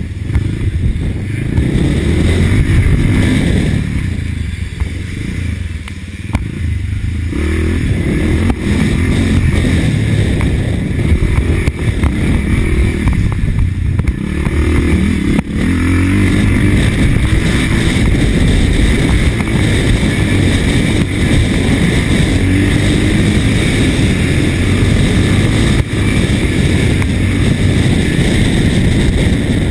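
1983 Husqvarna TC 500 motocross motorcycle running hard, its engine note rising and falling over and over as the throttle is opened and backed off. It is a little quieter about five seconds in.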